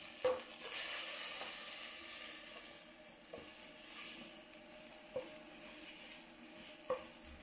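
Kroeung, a lemongrass herb paste, sizzling as it fries in hot oil in a pot, with four short knocks of a spatula against the pot as it is stirred.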